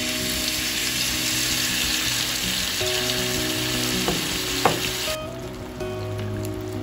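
Marinated char siu pork belly sizzling loudly in hot sesame oil in a nonstick frying pan just after it is laid in, with two sharp clicks about four seconds in. The sizzle drops to a quieter fry about five seconds in.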